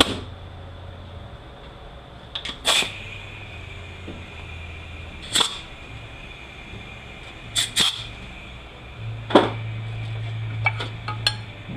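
Scattered sharp clicks and knocks, about half a dozen over the stretch, as a piston is worked out of its bore in a Toyota U760E automatic transaxle. A steady low hum runs underneath.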